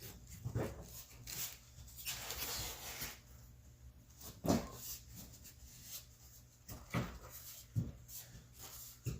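Scattered knocks and clicks with some rustling from hands working on a car door's interior trim panel and its plastic clips.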